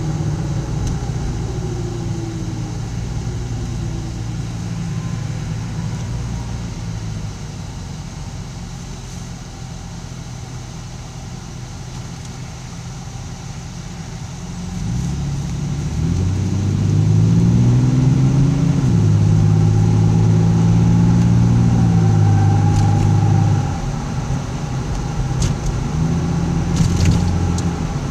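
Inside a car driving at low speed: engine and road noise, with the low-speed noise that the owner suspects is a bad wheel bearing. About halfway through, the engine note climbs as the car accelerates, holds for several seconds, then drops back near the end.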